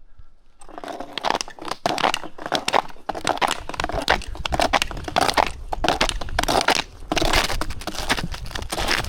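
Footsteps crunching steadily on brittle ground, starting about half a second in.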